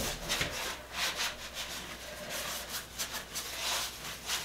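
Cloth scrubbing the porcelain top of a toilet bowl in quick, repeated rubbing strokes.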